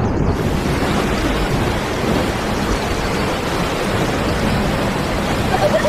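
Steady heavy rain with a low rumble of thunder.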